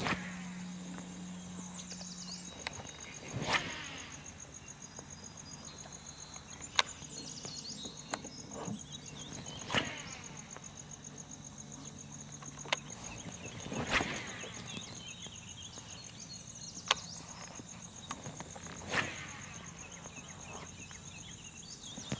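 Steady, pulsing high buzz of insects in a salt marsh. Four brief rushing swishes come about five seconds apart, with a couple of sharp clicks between them.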